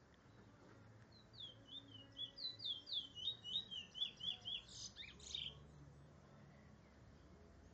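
A caged Trinidad bullfinch (chestnut-bellied seed finch) singing one phrase of about four seconds: a run of quick sliding whistled notes, ending in a couple of louder, rougher notes.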